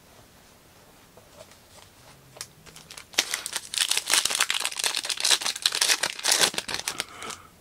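Foil wrapper of a 2023 Panini Illusions football trading-card pack being torn open and crinkled by hand: a few faint handling clicks, then about three seconds in a dense run of crackling that lasts about four seconds.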